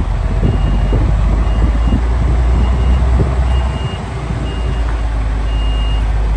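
A vehicle's reversing alarm beeping steadily, a single high tone about once a second, each beep about half a second long, over a loud low rumble.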